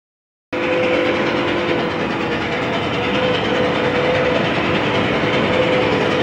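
After half a second of silence, a steam train starts abruptly: Northern Pacific No. 328 running with a steady rush and rumble. Its six-chime whistle sounds faintly over it as a held chord.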